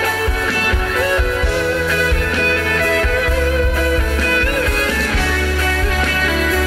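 A live pop-rock band playing, with electric guitar over bass guitar and drums, loud and steady throughout.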